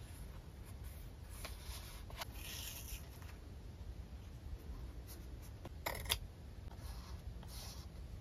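Washi tape being pressed and smoothed by hand onto a paper journal page: soft rubbing and light tape-and-paper crackles, with a sharper crinkle about six seconds in.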